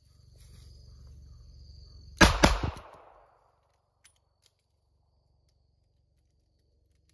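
Colt Cobra .38 Special revolver fired in a rapid string of several shots within about half a second, about two seconds in. A couple of faint clicks follow a little later.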